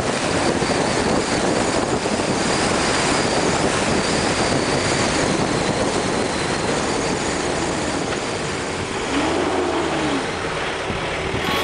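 Car driving at speed: a steady rush of tyre and wind noise, with a faint tone rising and falling briefly near the end.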